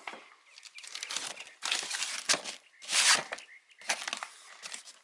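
Firework packaging being handled and moved: irregular rustling and crinkling, loudest about two and three seconds in.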